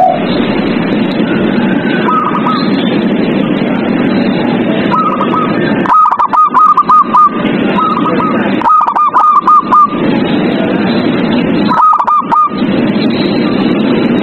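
Zebra dove song: runs of five to seven quick, short cooing notes, repeated several times, over a dense, steady background noise.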